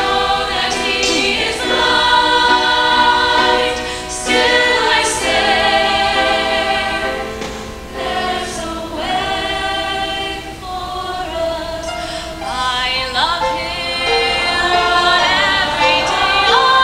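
Mixed choir of women's and men's voices singing held chords, swelling and easing off with brief dips between phrases.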